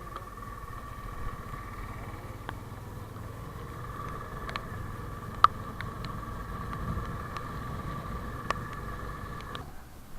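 An engine running steadily, with a high even whine over a low rumble and a few sharp clicks; it cuts off near the end.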